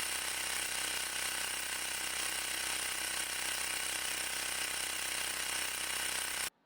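Xiaomi Mi portable electric air compressor running steadily and loud, pumping air into a flat bicycle tyre. It cuts off suddenly near the end.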